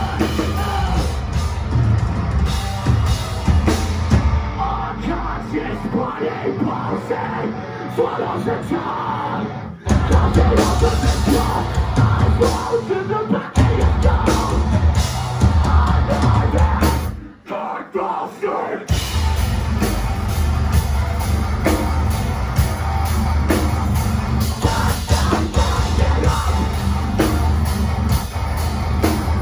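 Metalcore band playing live: distorted guitars, bass and drums with screamed vocals. About 4 s in, the lowest notes drop out for several seconds before the full band comes back in near 10 s. The band cuts out briefly about 17 s in, then comes back in.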